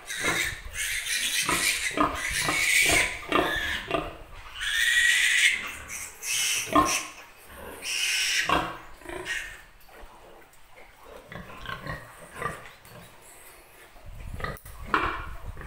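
Newborn piglet squealing as it is held and handled, several long, high-pitched squeals over the first nine seconds, then quieter short grunts and clicks.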